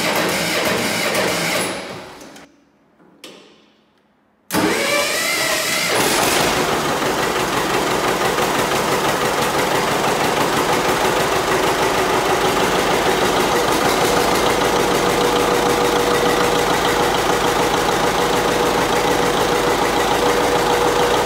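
The first two seconds of sound fade to near silence. About four and a half seconds in, the 1958 John Deere 720's two-cylinder diesel engine starts and then runs steadily, its fuel system freshly re-bled of the air pocket that had kept it from firing.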